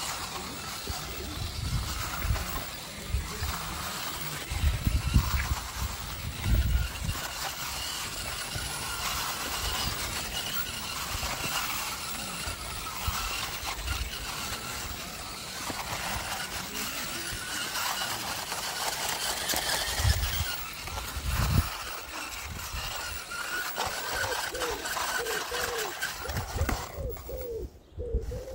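Motor-on-axle RC rock crawler's Hobbywing Fusion Pro brushless motor whining as it crawls, the whine rising and falling with throttle. Occasional low thumps, the loudest a few seconds in.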